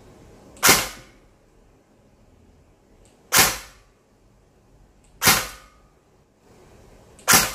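LCT AK74MN airsoft electric gun (AEG) firing four single shots a couple of seconds apart through a chronograph, each a sharp snap that dies away quickly. The chronograph reads about 380 fps.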